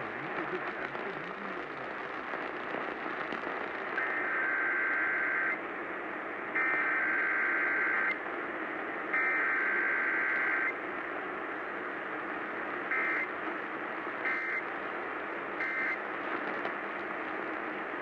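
Emergency Alert System data bursts played through a portable AM radio's speaker over steady radio hiss. Three long, harsh buzzing bursts of about a second and a half each, the SAME header that opens a required weekly test, are followed by three short bursts, the end-of-message code.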